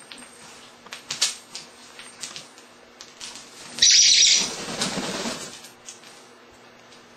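African grey parrot flapping its wings in one burst of less than two seconds, about four seconds in, after a few light clicks and taps.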